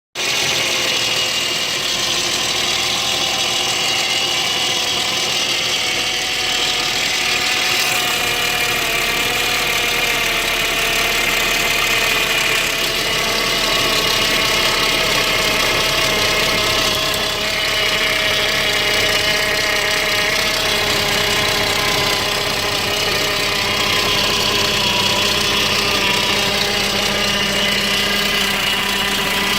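Saab 9-5 2.3-litre turbocharged four-cylinder engine idling steadily but roughly, its pitch wavering slightly. The rough, surging idle goes with a P0300 random-misfire code.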